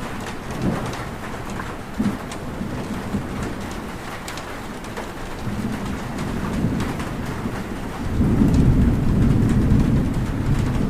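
Steady rain with scattered drop ticks, and low thunder that grows louder about eight seconds in.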